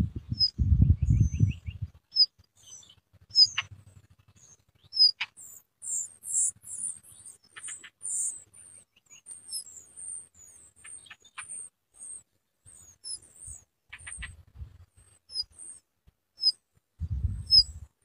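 Nestlings in a rock-crevice nest of blue rock thrushes giving many short, very high, thin begging chirps, busiest in the middle, as the adult stands at the nest. A few low thumps and rumbles near the start and again near the end.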